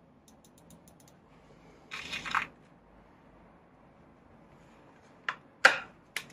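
Handling of a Weihrauch HW99S break-barrel spring air rifle: a faint run of about seven quick clicks, a half-second rasp about two seconds in, then near the end a sharp click, a loud sharp crack and a final click.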